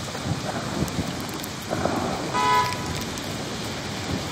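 Steady hiss of heavy rain over city street traffic, with a car horn honking once, briefly, about two and a half seconds in.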